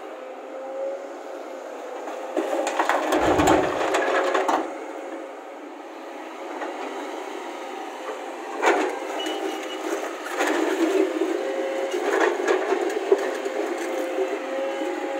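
A Hyundai crawler excavator's diesel engine runs steadily. About three seconds in there is a loud crash of rock being loaded into the steel dump-truck bed, followed later by three sharper knocks of stone and bucket.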